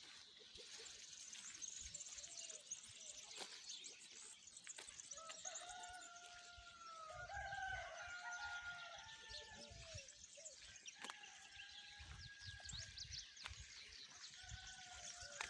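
Faint crowing of a free-range village rooster: one long call about five seconds in and another near the end, with small birds chirping high above it.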